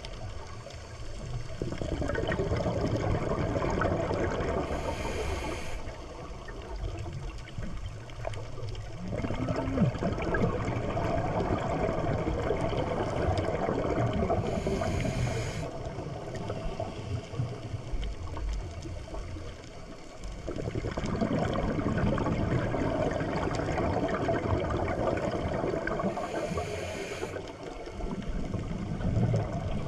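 Underwater sound of a scuba diver breathing through a regulator: a short hiss of inhaled air, then a long rumble of exhaled bubbles. This cycle repeats about every ten seconds, three times.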